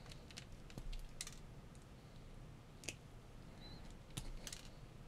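Wire strippers working on 16-gauge hook-up wire, stripping the insulation off the ends: several faint, irregular clicks and snips of the tool's jaws.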